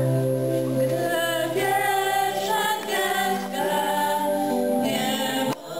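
A small choir of young voices singing a song together in sustained notes, with a short break just before the end.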